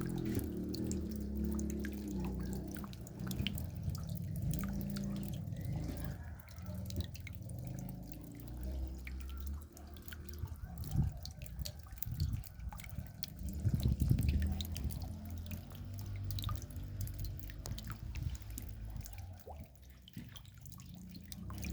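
Raindrops dripping: many small, irregular ticks of falling drops, over a steady low rumble.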